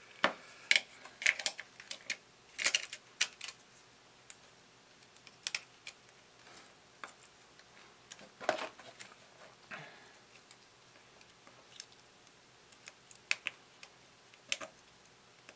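Irregular small clicks and taps of an iPhone 6s logic board and its parts being handled and fitted back into the phone's housing, a dozen or so scattered over the stretch with quiet gaps between.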